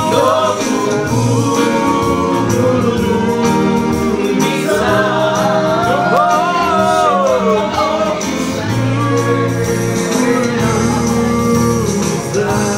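Luganda gospel worship song, sung over an instrumental backing, starting to fade out near the end.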